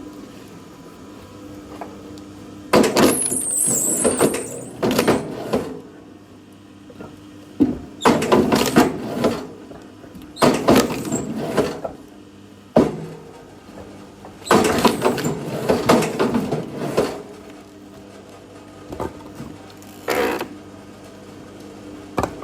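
Firewood being split with a log splitter: a steady machine hum runs under repeated bursts of wood cracking and breaking, each lasting a second or two, with one short sharp crack a little past the middle.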